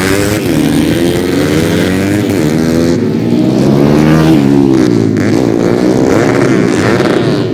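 Several small-displacement racing motorcycle engines revving hard at once, their overlapping pitches rising and falling as the bikes accelerate and shift through the gears.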